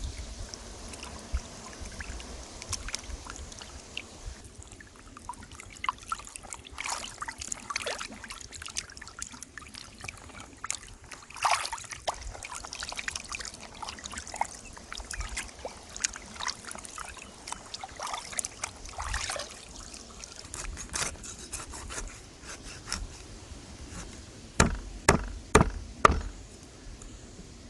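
Hands-on food preparation: scattered small clicks and handling noises with water trickling, then about four heavy knocks in quick succession near the end.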